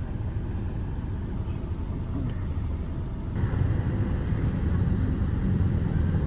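Steady low rumble of a moving vehicle, which steps up in loudness about three and a half seconds in.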